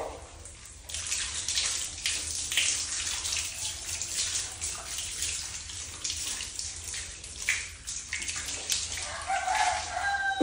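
Water poured from a plastic basin over a wet dog, splashing onto it and running onto the tiled floor in uneven gushes.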